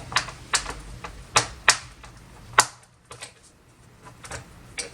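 A small Phillips screwdriver turns a back-cover screw on a Lenovo ThinkCentre all-in-one, and the screw clicks as it loosens. The sharp, irregular clicks come a few per second, the loudest about two and a half seconds in, and grow fainter after that.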